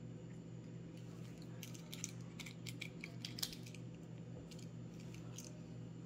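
Faint, sharp clicks and ticks of small metal lock parts being handled: tumbler pins and springs fitted into a door-lock cylinder and its key. There are about a dozen irregular clicks over a few seconds, over a steady low hum.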